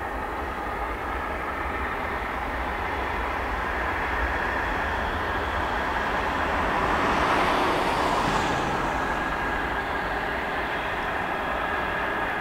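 Boeing 737-800 with CFM56-7B turbofan engines climbing away after takeoff: a steady jet roar with a high whining fan tone running through it. The roar swells a little past the middle.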